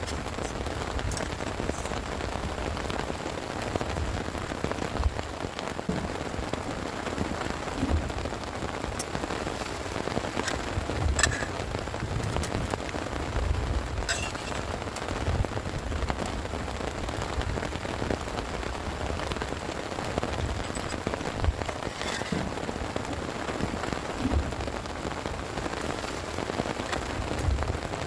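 Heavy rain falling steadily, with scattered sharp drop hits and occasional low thumps.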